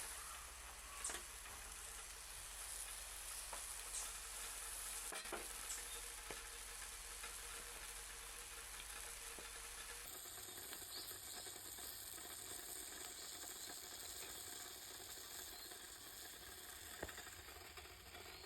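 Steady sizzling and bubbling of water boiling in a Sierra cup beneath a bamboo steamer on a gas burner, with a few light clicks; the sound changes character about ten seconds in.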